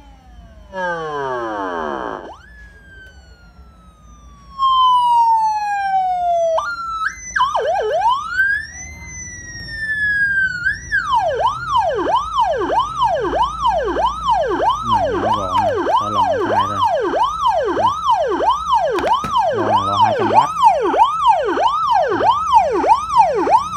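Electronic '113' police-style siren for a motorbike, sounding loudly through its tones: a quick falling chirp, slow falling and rising wails, then from about halfway a fast repeating yelp of about one and a half cycles a second.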